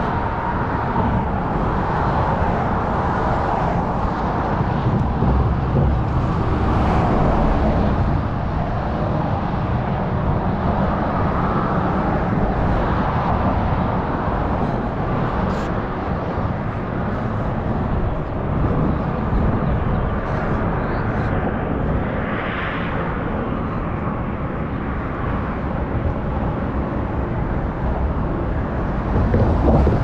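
Wind buffeting the microphone in uneven gusts over a steady wash of passing road traffic.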